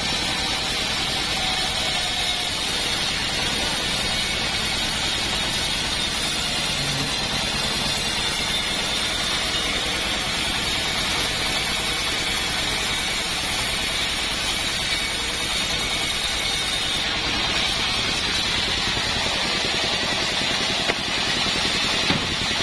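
Engine-driven portable band sawmill running steadily, its blade cutting lengthwise through a heavy beam of hard acacia wood.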